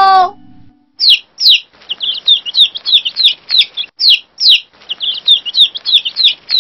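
Baby chicks peeping: a rapid run of high, short peeps, each sliding down in pitch, starting about a second in.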